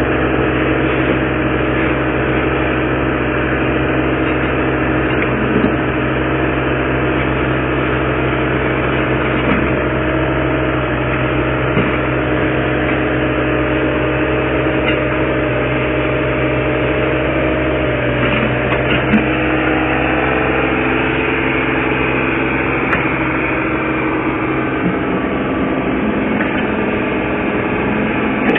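Caterpillar 303CR mini excavator's diesel engine running steadily under hydraulic load as the machine levers itself down off a flatbed truck on its boom and bucket, with a few light knocks.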